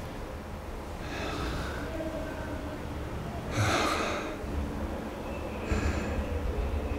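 A man breathing in loud gasps, a few separate breaths with the loudest about halfway through.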